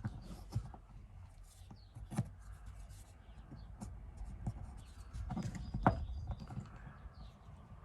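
Scattered light clicks and knocks from a wooden pen blank and small tools being handled, with a couple of sharper taps a little past the middle.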